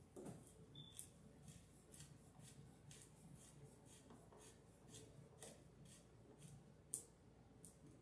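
Phillips screwdriver turned by hand, driving a screw through a plastic wiremold box into wood: faint scraping clicks about twice a second, with one sharper click about seven seconds in.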